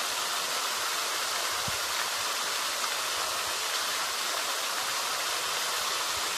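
A steady, even rushing noise with no pitch or rhythm, bright and hissy.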